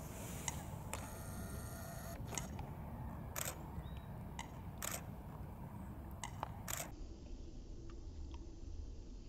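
Camera handling and lens noise: scattered sharp clicks and a brief buzzing motor whine about a second in, over a steady low rumble.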